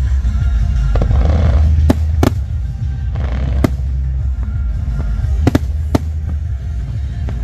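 Fireworks show going off: a continuous deep rumble of booms, with several sharp cracks, the first about two seconds in and two more close together near the end. Music plays along with it.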